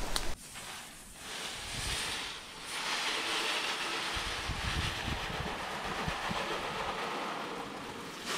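Water spraying from a hose spray nozzle against the underside of a car's hood and over the engine bay: a steady hiss of spray that starts about a second in, dips briefly, and runs steady again from about three seconds in.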